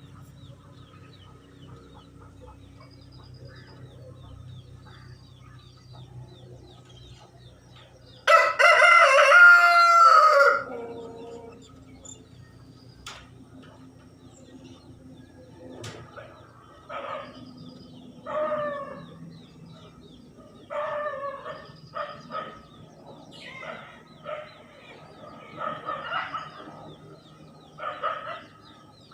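A rooster crowing once, loud and about two seconds long with a falling end, followed later by a string of shorter, quieter calls.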